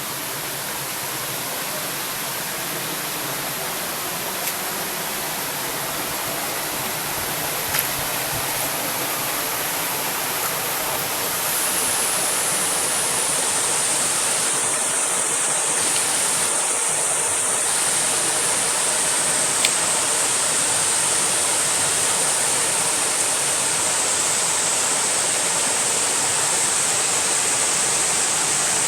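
Waterfall, water falling and rushing in a steady roar of noise, growing a little louder about twelve seconds in.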